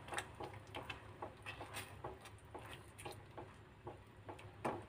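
Silicone spatula stirring wheat-flour batter into jaggery syrup in a steel pan: faint, irregular soft taps and clicks against the pan, a few each second, over a steady low hum.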